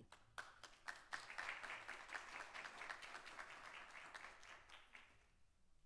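Faint applause: a room of people clapping that starts right away, then thins and dies out about five seconds in.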